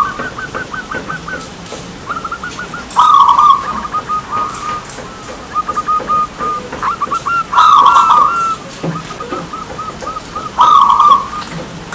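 Zebra dove (perkutut) singing its long cooing song: strings of quick staccato coos broken by a loud drawn-out coo that comes three times, a few seconds apart.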